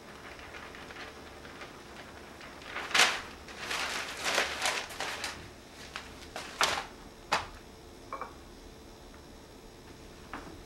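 Newspaper pages rustling and crackling as they are handled and folded, in a series of sharp crinkles starting about three seconds in and ending a few seconds later.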